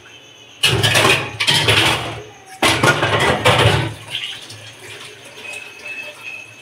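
Water poured in three rushes of about a second each, the last stopping about four seconds in.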